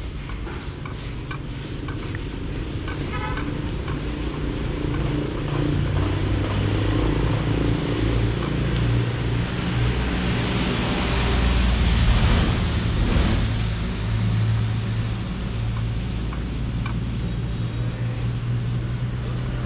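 Street traffic: a motor vehicle's engine running with a steady low hum that grows louder toward the middle. A louder swell about twelve seconds in is a vehicle passing.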